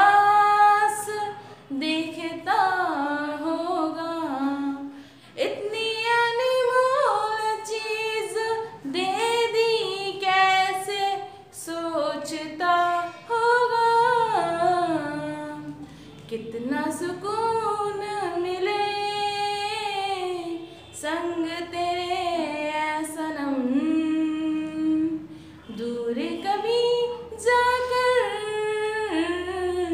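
A woman singing a Bollywood song solo and unaccompanied, her voice sliding and bending between notes, with short breath pauses between phrases.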